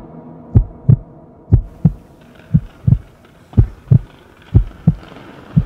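Heartbeat sound effect: paired low thumps, lub-dub, repeating about once a second. Faint outdoor background sound comes in about two seconds in.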